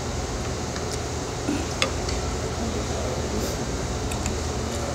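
Eating sounds from a bowl of noodle soup, with a sharp clink about two seconds in and a few fainter clicks of a soup spoon and chopsticks against the bowl. A steady low hum runs underneath.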